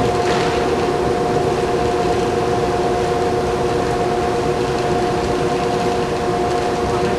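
Intro of a recorded music track for a dance routine: a held chord over a steady rushing noise, unchanging throughout.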